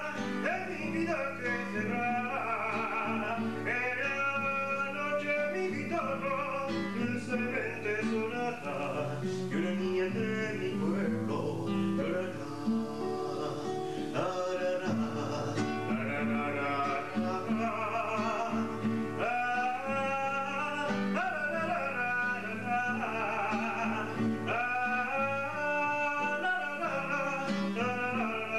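A man singing with a wavering, vibrato-laden voice while accompanying himself on an acoustic guitar.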